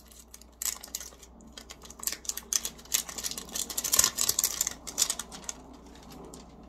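Eyeshadow palette packaging being opened: a dense run of crinkling, crackling snaps that starts about half a second in, is thickest past the middle and dies away about a second before the end.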